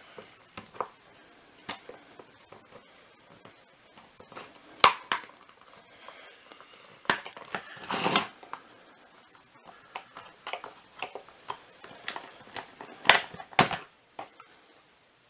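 Scattered hard plastic clicks, taps and scraping as the clipped-in end cap of a Shark WandVac power nozzle's brushroll is prised off with a tool, with sharp knocks about 5 and 13 seconds in and a short scrape near 8 seconds.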